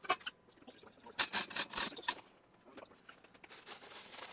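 A sharp knock, then a quick cluster of knocks and clatter about a second in, from hands working on the metal lathe and its steel tube stand; a softer rustling follows near the end.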